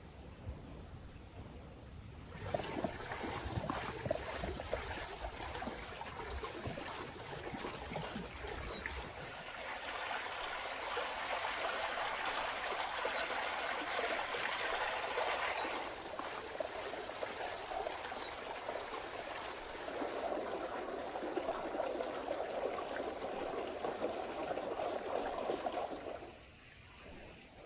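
Water pouring from a spring spout and splashing into a metal bowl as lettuce is rinsed by hand. The running and splashing shift in pitch a few times, then stop suddenly near the end.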